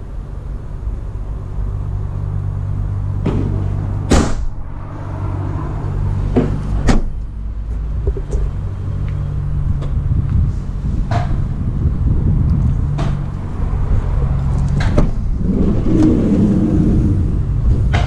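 Steady low mechanical hum, with scattered knocks and clunks every few seconds.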